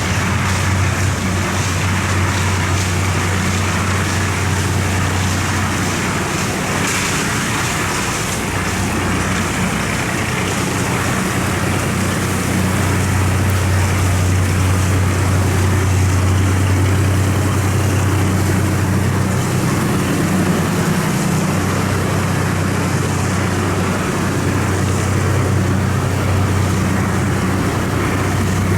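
A cargo boat's engine running steadily under load as it heads upstream: a loud, even, low drone with a broad wash of noise over it, getting slightly louder about halfway through.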